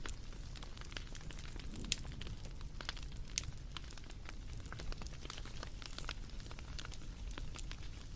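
Wood fire crackling: irregular sharp pops and snaps, a few louder than the rest, over a steady low background.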